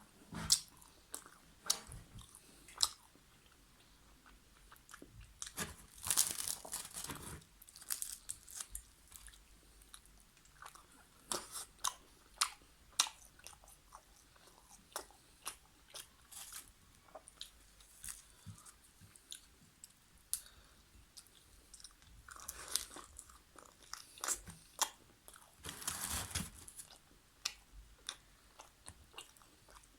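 Close-miked eating of chicken karahi with naan: a person chewing and biting, with many short mouth clicks. There are longer, noisier stretches about six seconds in, near 23 seconds and near 26 seconds.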